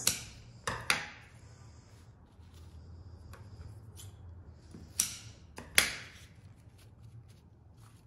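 Quiet handling noises as ranunculus flower heads are set down on a paper-towel-lined plate: a few short light clicks and taps, two of them close together about five seconds in, over a low steady hum.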